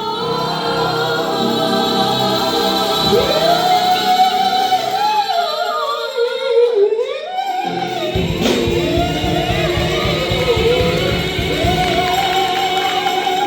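A high school choir singing, several voices together in long sustained phrases, holding a long steady note near the end.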